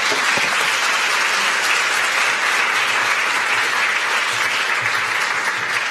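Large seated audience applauding, a steady dense wash of clapping that begins to die away near the end.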